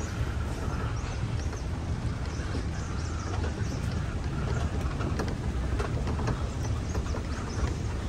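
Resort buggy in motion: a steady low rumble of its running gear and tyres on the path, with small clicks and rattles scattered through.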